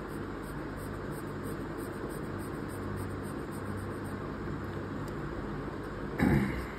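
Soft 8B graphite pencil hatching on paper, faint quick scratching strokes over a steady background hum. A brief louder bump comes about six seconds in.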